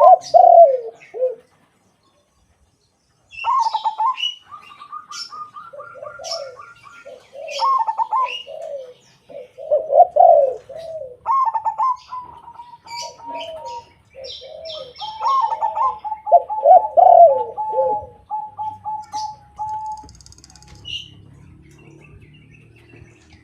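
A zebra dove (a silver crossbred perkutut) and a white spotted dove (derkuku) cooing back and forth. Quick stuttering trills are mixed with lower, swooping coos, alongside short high chirps. The calling pauses briefly near the start and fades out near the end.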